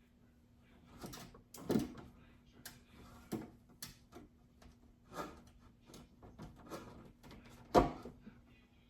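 Irregular knocks and clatter of refrigerator drawers, shelves and items being handled during cleaning, about a dozen in all, the loudest near the end, over a faint steady hum.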